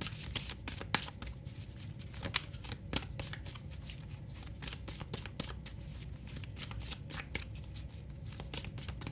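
Oracle card deck being shuffled by hand: a continuous run of quick, crisp card clicks, several a second.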